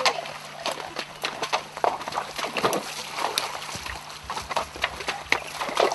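Horses walking through a shallow stony creek: hooves clopping on the stones and splashing in the water, in an irregular run of steps.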